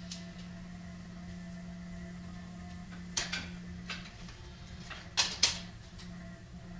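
Steady low electrical hum with a few sharp metallic clicks and knocks as a freshly powder-coated thin steel part is handled on a steel table rack. The loudest are two sharp knocks in quick succession a little after five seconds in.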